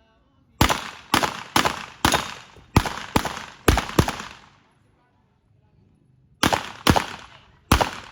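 Rapid gunshots from a firearm: a string of about eight shots roughly half a second apart, a pause of about two seconds, then three more shots near the end.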